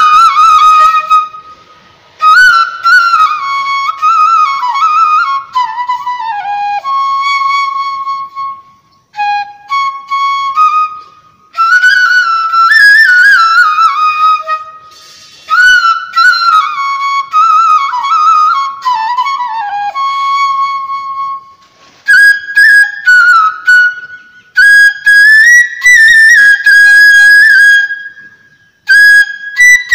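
Solo flute playing a slow melody with vibrato, in phrases broken by short pauses, unaccompanied.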